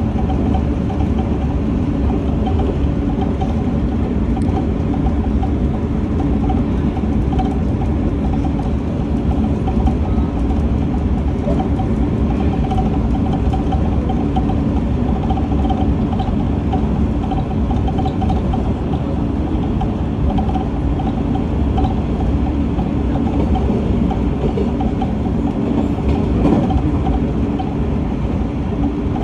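Steady running noise of a train heard from inside a passenger car: a low rumble of wheels on rail with a faint steady hum. Near the end, a container freight train passes close alongside.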